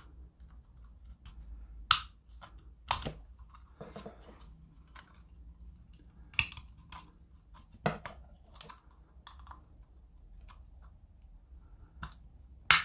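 Plastic case of a smart plug cracking and clicking as its glued seam is pried apart: several sharp snaps a second or more apart, with faint scraping between them, as the glued joint gives way.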